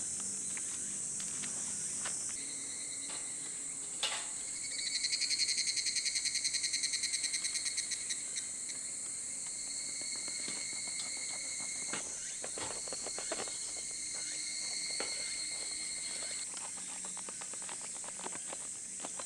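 Steady high-pitched chorus of summer insects, with one insect's pitched call that pulses rapidly about five to eight seconds in, the loudest part. Knife sawing through a crusty baguette gives short crackling crunches, mostly in the second half.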